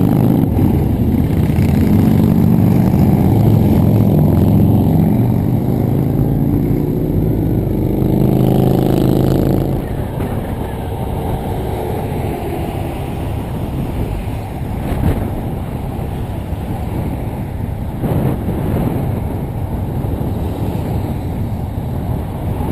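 Motorcycle engine running at highway speed, its note rising briefly near the middle. About ten seconds in the sound changes abruptly to a steady rush of wind and road noise.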